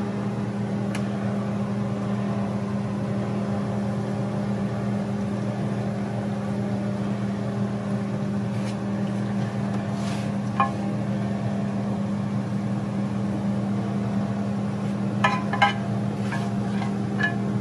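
A steady low mechanical hum, like a kitchen appliance motor or fan, with a few light clicks and taps of a wooden spatula against a nonstick grill pan and a foil tray, once about ten seconds in and several near the end.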